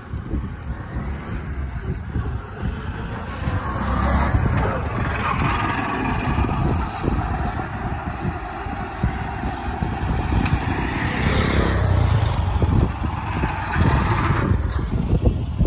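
Wind buffeting the microphone, with the running noise of a motor vehicle swelling about four seconds in and cutting off near the end.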